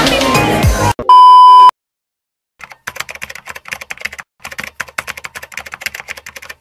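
Background music cut off about a second in by a loud, steady electronic beep lasting under a second. After a short silence, a typing sound effect begins: rapid keyboard clicks that accompany text being typed out on screen, pausing briefly once midway.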